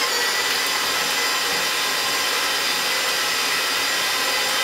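Stand mixer running steadily at medium speed, its flat beater beating four eggs in a steel bowl: an even motor whine. The pitch drops slightly right at the start.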